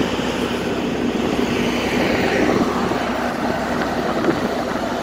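A river ferry's engine drones steadily with a constant hum, under a broad rushing noise of wind and water around the open deck.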